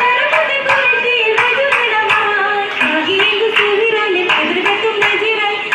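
Oppana song: girls' voices singing a Mappila song in a group, with rhythmic hand claps about three times a second.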